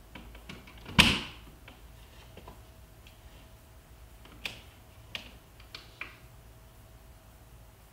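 A lamp plug being pushed into a Belkin WeMo smart plug: one sharp plastic click about a second in, followed by a few lighter clicks and taps of handling.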